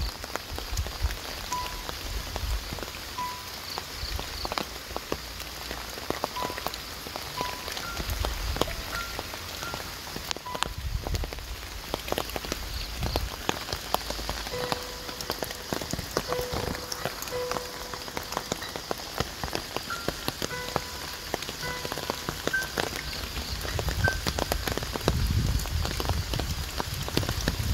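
Light rain pattering, with many irregular drops ticking close by over a steady hiss. Short, clear tones at a few fixed pitches come and go throughout, most of them after the middle.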